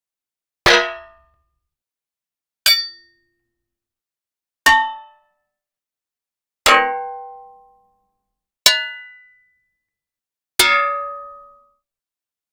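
Six separate metal hits, about two seconds apart, each a different struck metal object clanging and ringing with its own set of tones before dying away. The later strikes ring a little longer and lower than the earlier ones.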